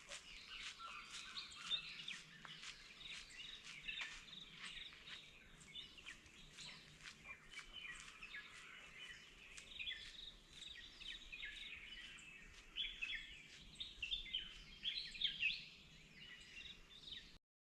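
Many small birds chirping and trilling together in woodland, a dense, faint chorus of quick overlapping calls that cuts out for a moment at the very end.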